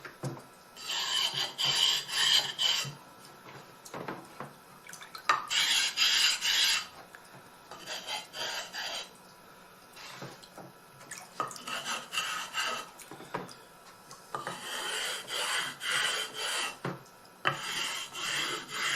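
A wet Japanese waterstone's edges being chamfered at 45 degrees by rubbing with a flattening stone: gritty stone-on-stone scraping in quick strokes. The strokes come in about six bouts of a second or two each, with short pauses between.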